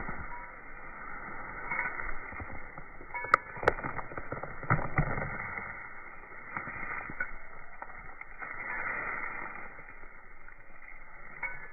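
A dog ripping and chewing up grass-weed roots: irregular crunching, tearing and snapping, with two sharp snaps about three and a half seconds in.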